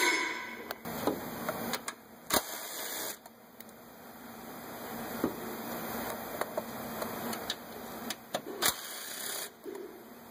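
Socket ratchet on a long extension clicking as it backs out a 12 mm bolt in the engine bay, with several sharper clicks of the tool against metal along the way.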